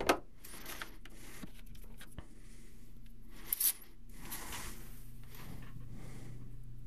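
Small medical supplies being handled: a click at the start, light rustling and clicks, and a short, sharp tearing sound about three and a half seconds in as a foil prep-pad packet is torn open. A steady low hum runs underneath.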